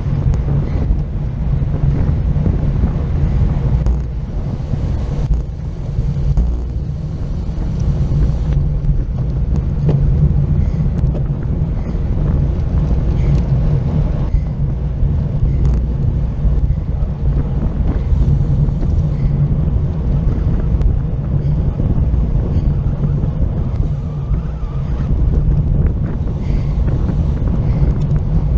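Wind buffeting the microphone of an action camera on a road bike racing at speed in a pack: a loud, steady low rumble.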